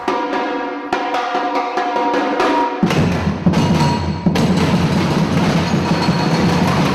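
Batucada group playing Brazilian percussion. For the first three seconds or so only the higher drums are heard, with quick ringing strokes. About three seconds in the deep surdo bass drums join and the full group plays together.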